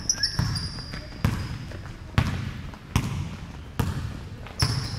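Basketball dribbled on a hardwood gym floor: six bounces a little under a second apart, each trailing off in the hall, with a few short high sneaker squeaks near the start and near the end.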